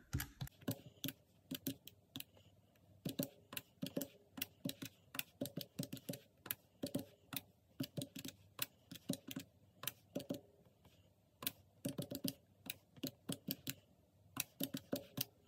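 Keys of a desktop calculator tapped with long fingernails: irregular runs of sharp plastic clicks with brief pauses, as a column of figures is added up.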